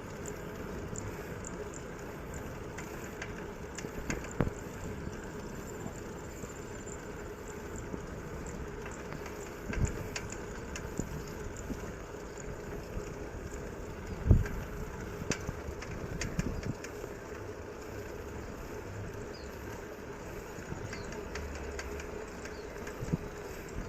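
Bicycle being ridden on a rough road: steady rolling noise with scattered knocks and rattles from bumps, the loudest about fourteen seconds in.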